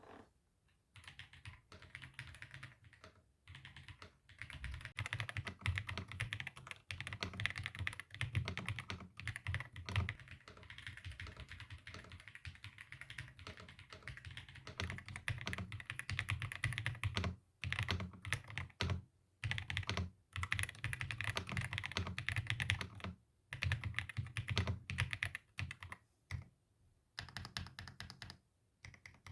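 Ajazz AK820 Max mechanical keyboard with Flying Fish switches being typed on, a fast, continuous run of keystroke clacks broken by a few short pauses.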